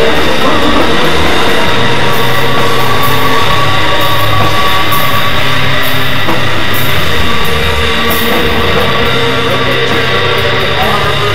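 Raw doom/black metal song: a dense, continuous wall of distorted band sound with a dull, lo-fi top end. The loudness dips slightly about two-thirds of the way through.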